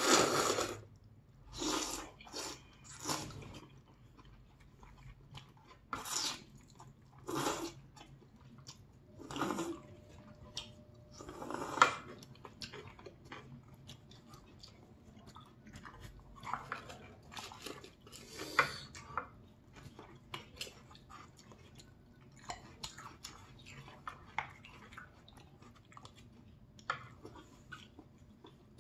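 Eating sounds: noodles being slurped in several short pulls during the first half, with chewing throughout and small clicks of chopsticks and a spoon.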